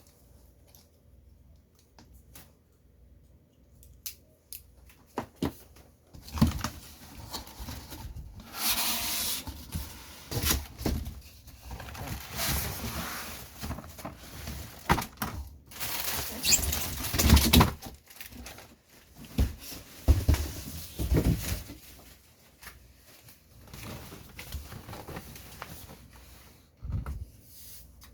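A toy's box and packaging being handled and opened: irregular rustling, scraping and tearing with sharp clicks and knocks, starting about six seconds in after a quiet stretch.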